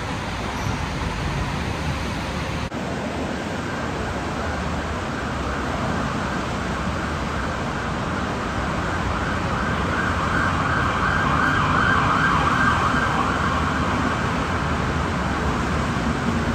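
Santiago Metro AS-02 train running through the rain, its steady rolling noise over the rain hiss swelling gradually to a peak about twelve seconds in as it draws closer.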